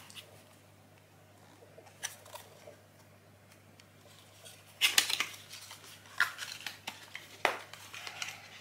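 Small cardboard box being handled and opened by hand: short scrapes and clicks of the card and its end flap, loudest about five seconds in.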